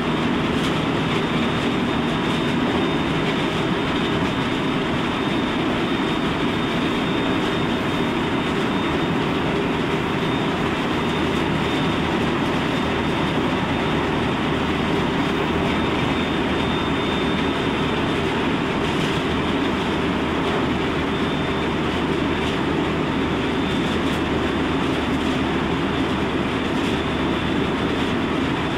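Interior running noise in the front car of a JR West Special Rapid Service electric train travelling at speed: a steady rumble of wheels on rail with faint clicks, and a faint steady high whine over it.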